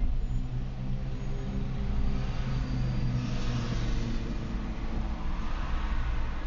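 Driving noise inside a moving car's cabin: a steady low hum of tyres and drivetrain, with a rush of hiss swelling about halfway through.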